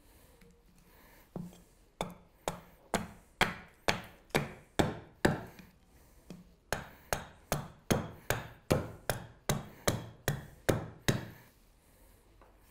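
Hatchet chopping an alder spoon blank held against a wooden chopping block: a run of about twenty sharp chops, two to three a second, with a short pause about halfway through.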